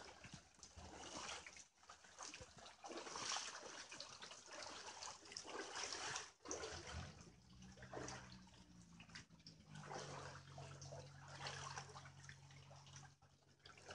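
Floodwater sloshing and splashing on the floor of a flooded house as someone wades through it, in uneven swells. A faint steady low hum joins about halfway through.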